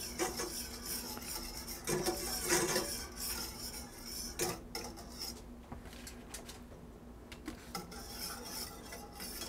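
Wire whisk stirring thickening flour gravy in a stainless steel pan, its metal tines scraping and clicking against the pan in irregular strokes. The strokes ease off for a couple of seconds past the middle, then pick up again.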